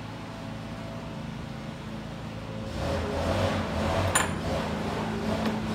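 A steady low hum of outdoor background noise, with a passing vehicle swelling from about three seconds in. A single sharp metallic clink rings out about four seconds in.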